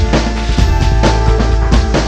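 Background music with a steady drum beat and a heavy bass line.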